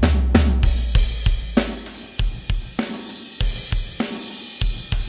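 Recorded drum kit playing back: kick, snare, hi-hat and cymbals in a steady groove, with a low boom that dies away about two seconds in. The kit runs through the X32's M/S Fair Compressor, a Fairchild 670 emulation, with the middle compressed harder, which sets the snare and kick a little farther back and widens the stereo spread.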